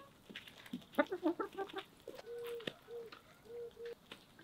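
Hens clucking: a quick jumble of clucks about a second in, then a string of short, low, steady notes. Scattered sharp taps from beaks pecking at pizza crust on the dirt.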